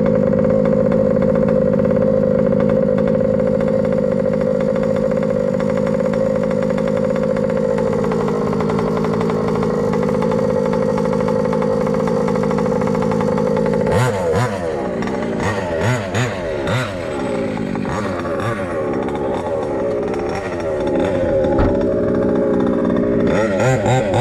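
MCD XR5 1/5-scale RC rally car's small two-stroke petrol engine idling steadily, then from about halfway through being revved in blips, its pitch rising and falling.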